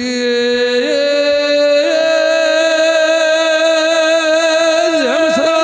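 A singer's voice holding a long drawn-out note of a devotional alaap, stepping up in pitch twice in the first two seconds and then held, breaking into quick ornamented turns near the end.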